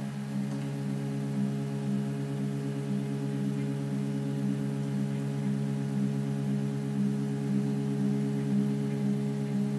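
RapMan 3.1 3D printer's stepper motors humming in steady low pitched tones as the machine prints a hollow cone. The sound starts suddenly and holds one chord-like pitch with a slight regular pulsing.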